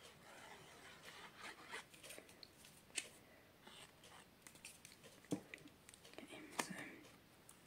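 Faint rustling of card and paper being handled, with a few light, sharp taps and clicks, about three of them standing out.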